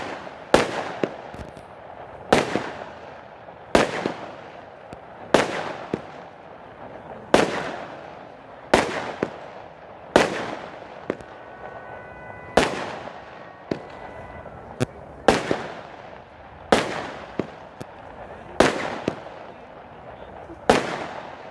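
13-shot consumer firework cakes (Badar and Blaze Magnum) firing a volley of aerial shells: about a dozen sharp bangs, one every one to two seconds, each fading away over about a second.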